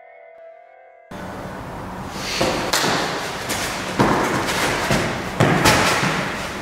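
Faint synthesiser music trails off, then about a second in comes the scuffle of two men grappling on a foam mat: shoes shuffling and several thuds of feet and bodies over a steady hiss, the loudest thuds past the middle.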